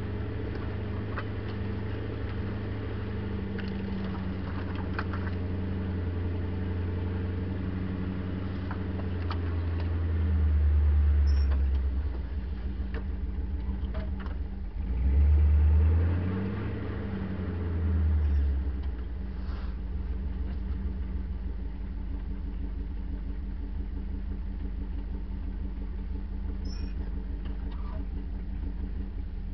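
Land Rover Series 2a engine running at low revs as the vehicle drives, heard from the bonnet, with three brief rises in revs around the middle and occasional light knocks.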